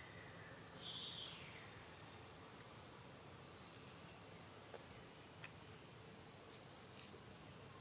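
Faint insects chirring in high steady tones that come and go. About a second in there is one brief louder high chirp, and a few faint ticks follow later.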